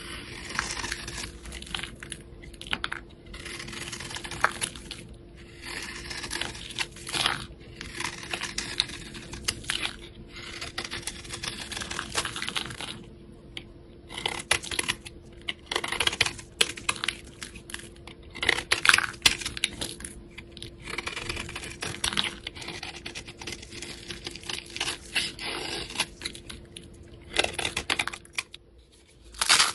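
Straight blade scraping across a bar of soap, shaving off flakes and powder: repeated crisp rasping strokes full of small crackles, each about a second long with short pauses between. It falls quiet briefly near the end before the scraping starts again.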